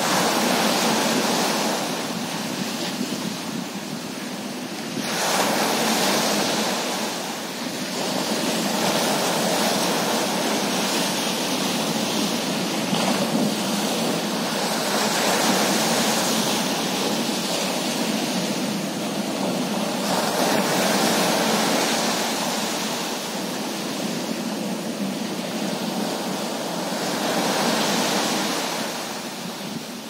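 Small surf breaking and washing up a sandy beach, the rush of the waves swelling and easing every few seconds.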